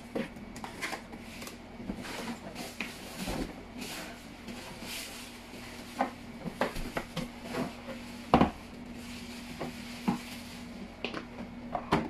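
Unboxing handling noise: the plastic parts of a Black + Decker wet/dry vacuum and its plastic wrapping being moved about in and out of a cardboard box, with scattered clicks and knocks, some rustling, and one louder knock about eight seconds in.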